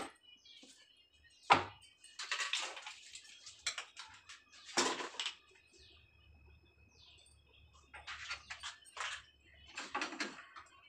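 Household items being moved about on kitchen shelves: a sharp knock about one and a half seconds in, then short bursts of rustling and clinking as packets and containers are picked up and set down.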